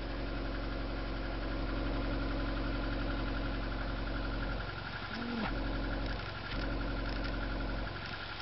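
VAZ 2111's four-cylinder engine idling steadily at the tailpipe, shortly after being started from cold following a long standstill, with a not very pleasant sound to it. The low hum dips briefly a few times.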